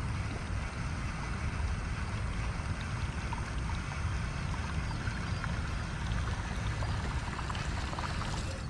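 Wind buffeting the microphone outdoors: a steady low rumble with a hiss over it, and faint light ticks from about halfway through.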